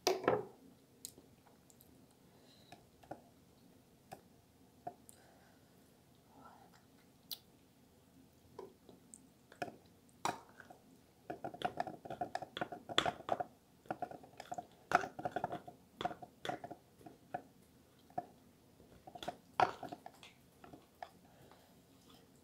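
Close-miked chewing and small mouth clicks. About halfway through, a denser run of scraping and clinking begins as a serrated knife and a spoon cut through cheesy eggplant parmigiana in a glass baking dish.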